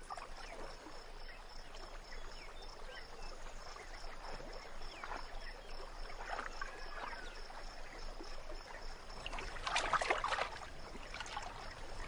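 Quiet outdoor riverside ambience: a faint haze of water noise with scattered short chirps, a faint steady high tone, and a louder cluster of short sounds about ten seconds in.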